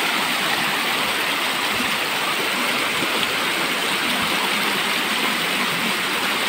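Shallow mountain river running over stepped rock ledges in small cascades: a steady splashing rush of water.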